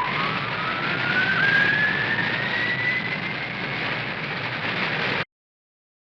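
Cartoon sound effect: a loud rushing roar with a whine that climbs in pitch and then levels off high, like an engine spooling up, cutting off suddenly about five seconds in.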